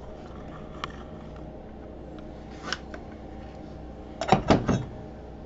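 Handling noises over a steady low hum: a couple of faint clicks, then about four seconds in a quick clatter of three sharp knocks, as hard tools or fittings are moved about.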